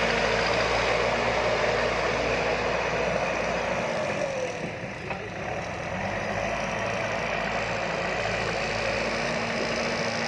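Diesel engine of a backhoe loader or excavator running steadily, easing off for a couple of seconds about four seconds in and then picking back up.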